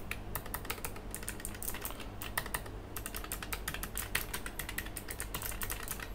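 Typing on a Keychron K11 Pro low-profile mechanical keyboard with Gateron Blue clicky switches: a fast, uneven run of key clicks, with a short pause about two and a half seconds in.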